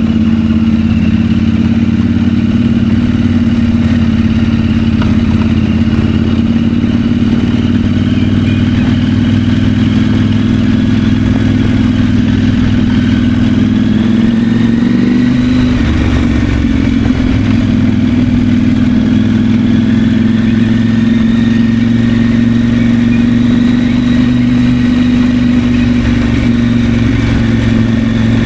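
KTM 890 Adventure's 889 cc parallel-twin engine running at a steady cruise while being ridden. The engine note dips briefly about halfway through, then settles steady again.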